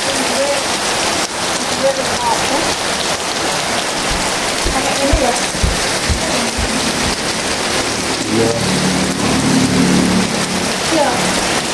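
Heavy rain pouring down steadily, with a few dull low thumps about halfway through.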